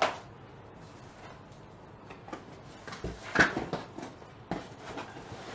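Rummaging through items in a cardboard shipping box: a sharp knock at the start, then a cluster of knocks and packaging rustles about three seconds in, the loudest moment, with a few more shortly after.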